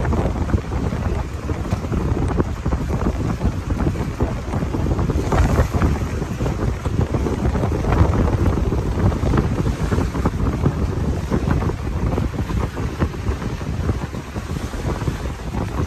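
Strong wind buffeting the microphone, a loud gusting low rumble, over choppy lagoon water lapping and splashing.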